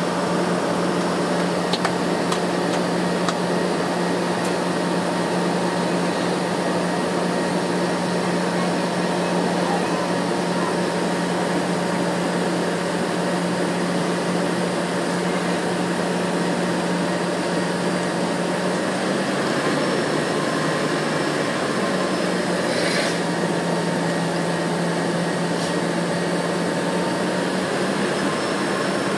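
Steady cabin noise inside an airliner waiting to take off: the hum of its engines and air conditioning, with a steady low tone that dips briefly about two-thirds of the way through. A few faint clicks near the start and a short hiss a little later.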